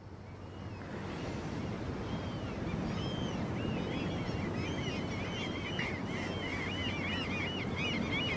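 Sea surf washing steadily, fading in over the first second or so, with a flock of birds calling in many overlapping short chirps that grow denser from about two seconds in.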